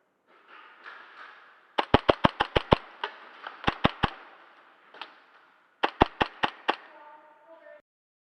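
Airsoft gun shots in quick strings: a run of about seven sharp cracks, a few more a second later, a single shot, then another short string of four.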